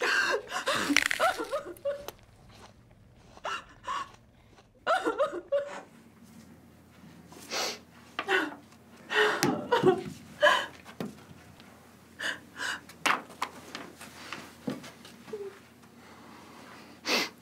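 A woman crying, sobbing in irregular bursts, strongest in the first two seconds and again around the middle.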